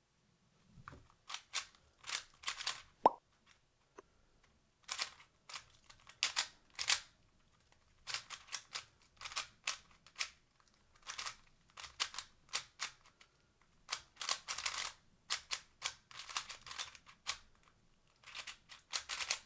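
Fangshi GuangYing 3x3 speedcube turned fast by hand during a solve: quick runs of plastic clicks as the layers turn, in bursts with short pauses between them. One sharper, louder snap comes about three seconds in.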